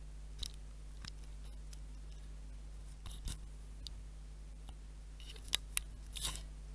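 Handling noise from a handheld camera being moved: a few faint scattered clicks and taps, with two sharp ones close together near the end, over a steady low hum.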